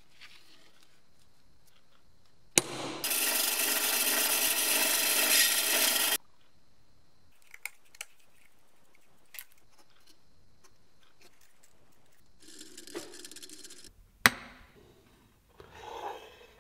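A tool working a small wooden block: a steady, rasping noise that starts and stops abruptly and lasts about three and a half seconds. Light clicks and taps follow as nails are set into holes in the block, then a shorter burst of rubbing and a sharp knock near the end.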